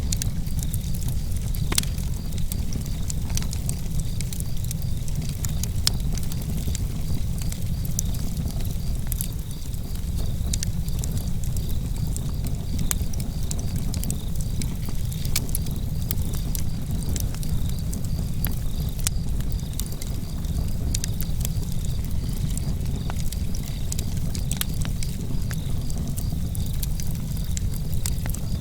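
Wood fire burning in a fireplace: frequent sharp crackles and pops over a steady low rumble.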